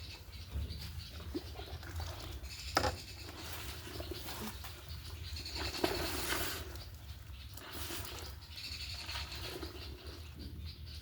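Laundry being washed by hand in a basin: irregular swishes and splashes of wet cloth and water, the loudest about 3 and 6 seconds in.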